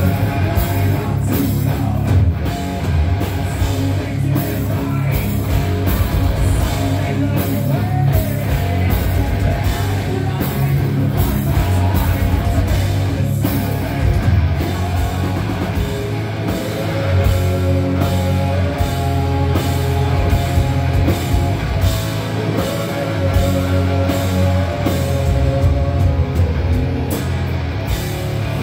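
Live hard rock band playing loud: distorted electric guitars over bass and a drum kit, heard close to the stage.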